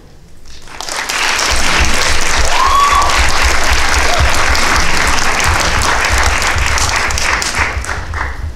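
Audience applauding. The applause breaks out under a second in, just after the music stops, and stays loud and steady.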